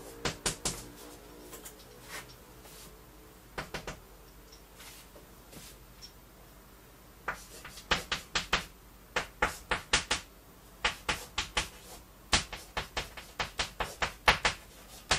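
Chalk writing on a blackboard: runs of quick, sharp taps and short scrapes as characters are written stroke by stroke, with a mostly quiet stretch in the first half and dense writing from about halfway through.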